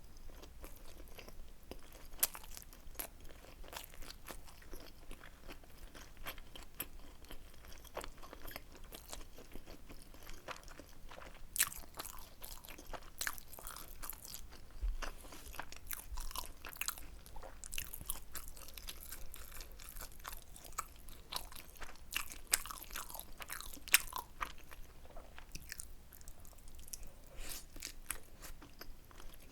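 Close-miked chewing and biting of tteokbokki: a steady run of wet, sticky mouth clicks and crunchy bites, busier and louder in stretches around the middle.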